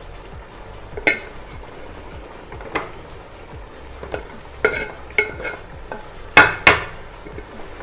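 Long metal spoon stirring boiled tapioca (kappa) mixed with spice paste in an aluminium pot. It scrapes and knocks against the pot, with about six sharp clinks; the loudest two come close together near the end. The tapioca is being stirred so that it doesn't stick to the bottom of the pot.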